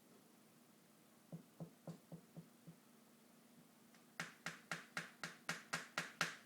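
A person's sharp clicking sounds, about ten in a quick even run at roughly four or five a second, made to get a sleeping dachshund's attention. They come after a few soft, dull taps a little over a second in.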